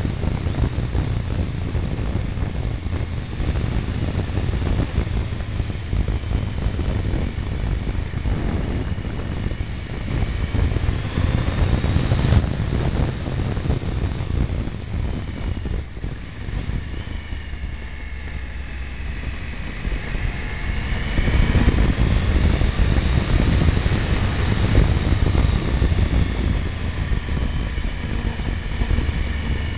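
Triumph Tiger 955i three-cylinder motorcycle riding downhill through bends: wind rumbling over the mirror-mounted camera's microphone over the engine, whose note rises and falls. It gets louder about two-thirds of the way through.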